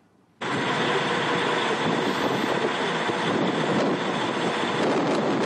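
Steady rush of boat engines, wind and water from fast-moving armoured patrol boats at sea, starting abruptly about half a second in.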